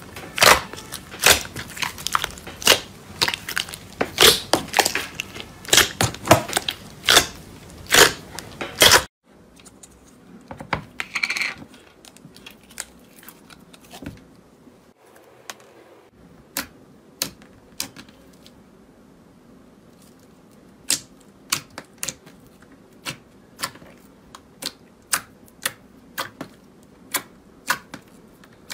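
Hand squeezing brown slime packed with beads and hard charms, giving a dense run of sharp clicks and pops. About nine seconds in it cuts to fingers pressing soft white slime, with fainter, scattered pops and clicks that come a few a second near the end.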